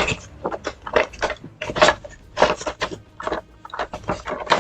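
Hands working open a small cardboard collectible box: a quick run of scraping, rustling and tapping sounds, several a second.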